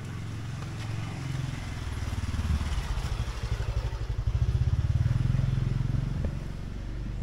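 A small motor vehicle engine passing close by, with a fast even pulsing. It grows louder to a peak about two-thirds of the way in, then eases off near the end.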